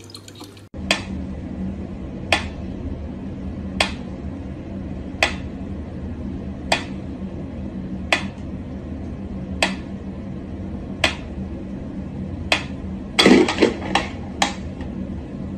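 Mechanical pendulum metronome ticking slowly and evenly, about one tick every second and a half. Near the end comes a quick run of several louder knocks.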